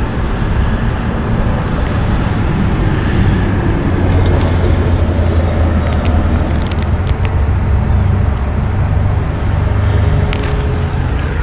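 Steady low rumble of road traffic, swelling for several seconds around the middle, with a few faint clicks.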